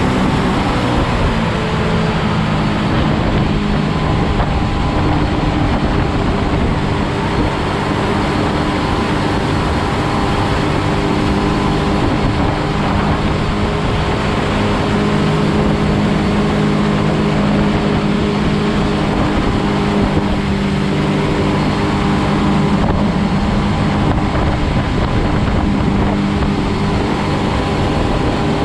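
Jet boat's engine running steadily under way at speed, with a constant rush of wind and water.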